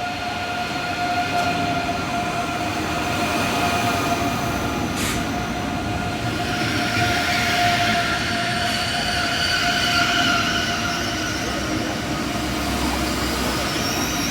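ICE 3 (Class 403) high-speed electric train arriving at a platform: steady whining tones over rail noise, which grows louder from about six seconds in as the train comes alongside. A single sharp click about five seconds in.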